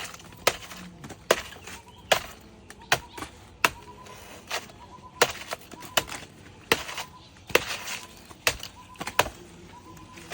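A blade chopping into a banana tree trunk with sharp, evenly paced strikes, about one every second.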